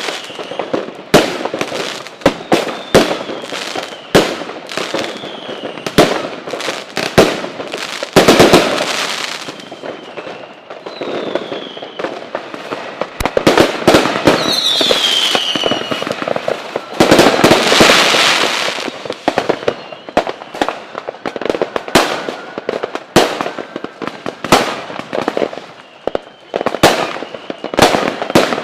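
Fireworks and firecrackers going off in quick succession, sharp bangs throughout. About halfway through there is a stretch of dense crackling, and a short whistle falls in pitch in the middle of it.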